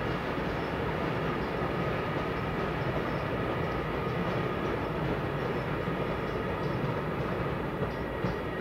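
Railway passenger coaches rolling across an iron arch bridge: a steady rumble and rattle of wheels running on the rails.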